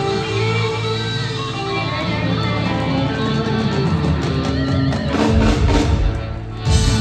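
Live electric blues band playing: electric guitars, bass guitar, drums and keyboards. In the last two seconds the drums come in with heavy strokes, then one loud closing hit near the end: the song is finishing.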